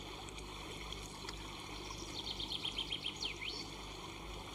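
Steady outdoor ambient noise with a bird singing a short, quick run of high chirps about two seconds in, ending in a couple of falling notes.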